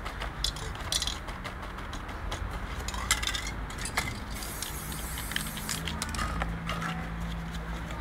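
Scattered clicks and crinkles of hands handling paint tools on a work table, with a hiss of an aerosol spray-paint can lasting about a second, some four and a half seconds in.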